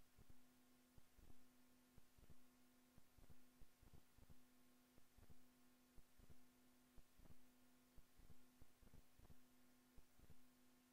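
Near silence: a faint steady hum, with soft low ticks recurring about once a second.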